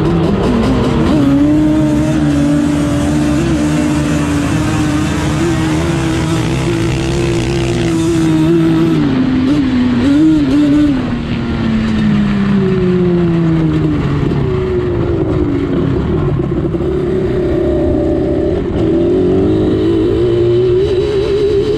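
Yamaha Banshee's 350 cc two-stroke twin launching at full throttle, heard from the rider's seat: the pitch climbs about a second in and holds high and steady, drops away around halfway through as the throttle comes off, then revs up and down a few times and climbs again near the end.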